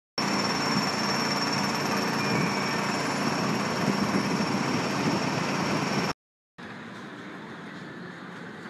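Steady street noise with an engine running, low hum plus a thin high whine. It cuts off abruptly about six seconds in, and after a brief gap a quieter outdoor background takes over.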